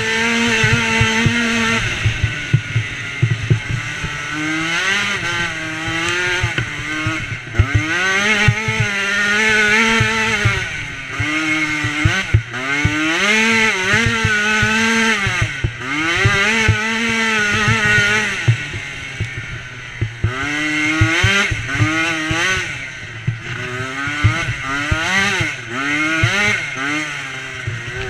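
Dirt bike engine revving up and dropping back again and again as the rider works the throttle over rough trail, with short knocks from the bike bouncing over the ground.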